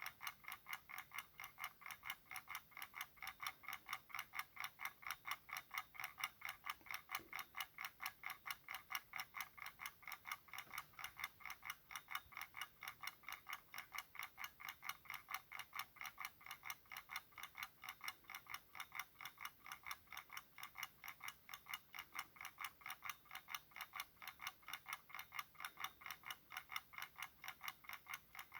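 Ticking-bomb sound effect: a clock-style timer ticking steadily, with sharp, evenly spaced ticks several times a second that keep the same pace throughout.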